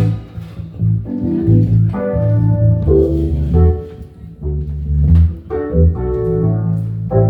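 Band jamming: instrumental music with held chords, changing about once a second, over a strong bass line.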